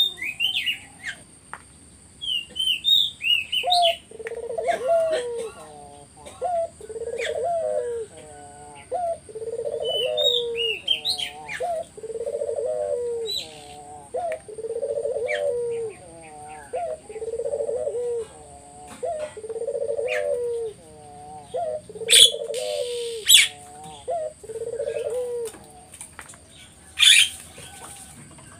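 Ringneck dove (burung puter) cooing over and over, a regular series of coos about every two seconds, with small birds chirping in between.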